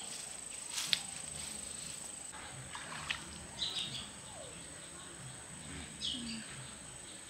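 Quiet rural outdoor ambience: a steady high insect trill, fainter after about two seconds, with a few short bird chirps.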